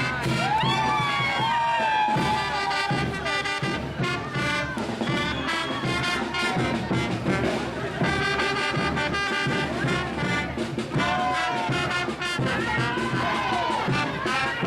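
Brass band playing traditional Andean parade music with a steady beat, with crowd voices underneath.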